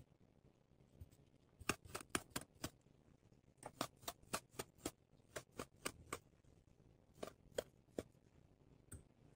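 Crisp crunching clicks from kinetic sand being cut, in quick runs of about four or five strokes a second, with short pauses between the runs.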